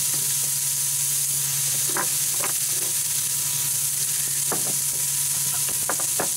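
Hamburger patties sizzling on the hot plate of a Power Smokeless Grill, with the grill's fan humming steadily underneath. A few light clicks and taps come about two seconds in and again near the end.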